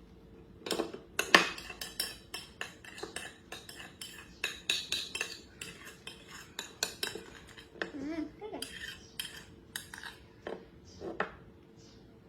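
Metal spoon clinking and scraping against a bowl in quick, irregular strikes, as porridge is spooned out for feeding. A brief wavering squeak about eight seconds in.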